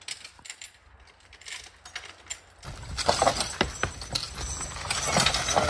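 Belgian draft horse team moving in harness, with chains and metal hardware clinking and knocking, louder from about three seconds in after a quieter stretch of faint clicks.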